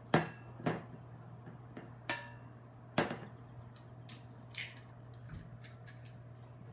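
Eggs being tapped against a stainless steel mixing bowl and cracked open: four sharp knocks in the first three seconds, then softer clicks and crackling of shell as the halves are pulled apart. A faint steady hum lies underneath.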